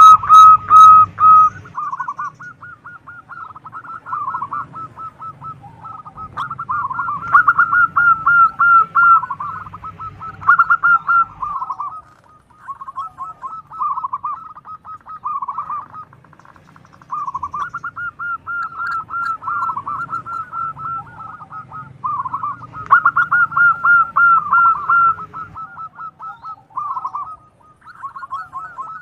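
Zebra dove (perkutut) cooing: bouts of quick, rolling staccato coos, each a second or a few seconds long, repeated with short pauses between them.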